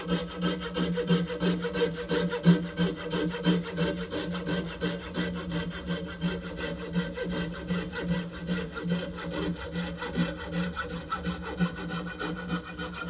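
Hacksaw cutting through an old wooden axe handle where it meets the axe head, in quick, even back-and-forth strokes.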